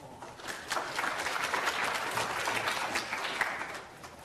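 Audience applauding, building up about half a second in and dying away near the end.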